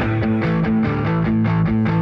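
Background rock music with distorted electric guitar playing a riff of short notes that change pitch about every quarter second over a steady beat.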